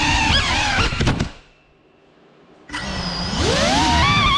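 GEPRC CineLog35 cinewhoop's brushless motors and ducted propellers whining as the throttle changes: the pitch dips and drops away about a second in, stays low for over a second, then spools back up in a rising whine that wavers near the end.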